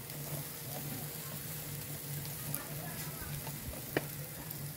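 Meat sizzling on an open grill, with a single sharp click about four seconds in.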